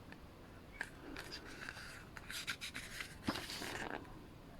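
Faint rustling and light taps of paper as an album photobook's pages are handled and turned, with a longer rustle a little past three seconds in.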